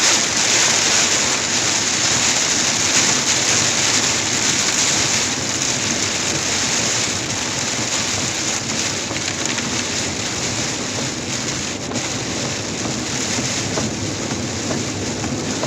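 Car driving on a soaked, flooded road, heard from inside the cabin: a steady hiss of water that eases slightly about six seconds in.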